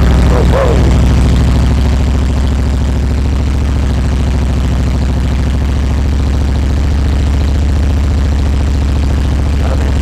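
Harley-Davidson Twin Cam 88 V-twin, freshly converted from fuel injection to an S&S Super E carburetor, idling steadily on choke just after firing for the first time since the conversion. It eases down a little about two seconds in, then holds steady.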